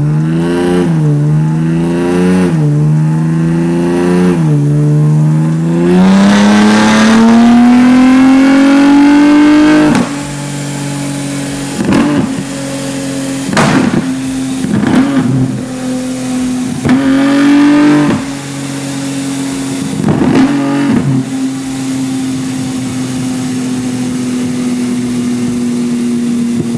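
Nissan Z's VR30 twin-turbo V6 accelerating hard. Its note climbs and drops back several times in the first few seconds as it shifts up, then makes one long climb that cuts off about ten seconds in. After that a steady engine tone runs under a string of sharp, loud pops and bangs.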